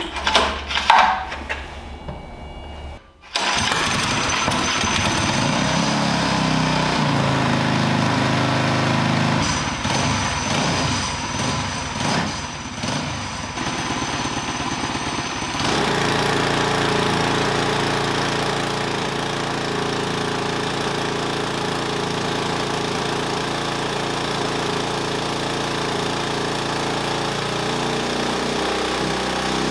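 A few knocks in the first three seconds, then a built, stage 4 Predator 224cc single-cylinder engine on a dyno runs steadily at low to mid revs from about three seconds in, warming up to temperature; it settles into a more even note about halfway through.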